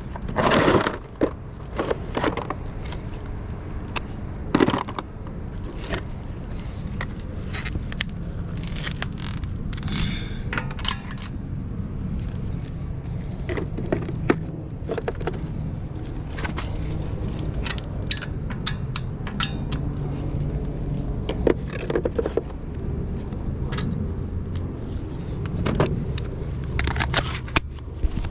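Metal tire-changing tools clinking, clanking and scraping at irregular intervals, over a steady low rumble.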